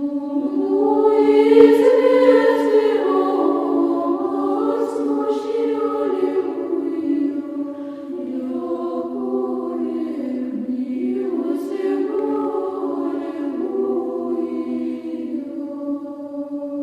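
Choir chanting over a steady held drone note, with the voices moving above it and loudest about two seconds in.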